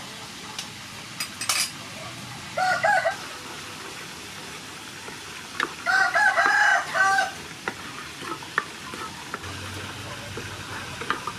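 A rooster crows twice, a short call about three seconds in and a longer one around six seconds. Underneath is the steady sizzle of pork frying in sauce in a nonstick pan, with scattered clicks of a wooden spatula stirring it.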